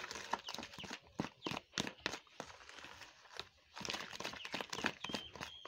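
Wooden spoon beating margarine and sugar in a plastic bowl: irregular taps and scrapes of the spoon against the bowl, several a second.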